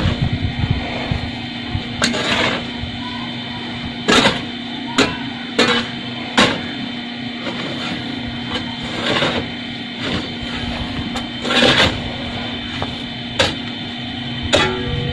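A digging hoe chopping into dry, clod-strewn soil: about a dozen sharp strikes at irregular intervals, a second or two apart, over a steady hum.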